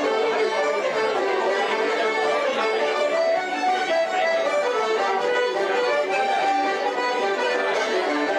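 A traditional Irish music session: several fiddles playing a tune in unison, with accordion and banjos.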